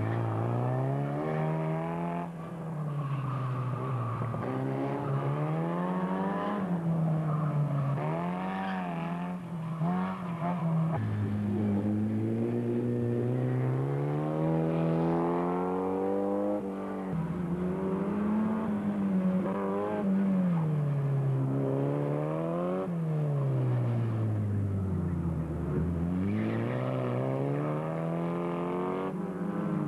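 Formula Ford single-seater's engine revving hard and lifting off again and again as the car accelerates and brakes between slalom cones. The pitch swings up and down every one to three seconds, with sudden jumps near the middle.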